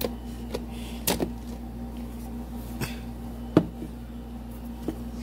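A handful of sharp knocks and clatters of kitchenware being handled, the loudest about three and a half seconds in, over a steady low hum.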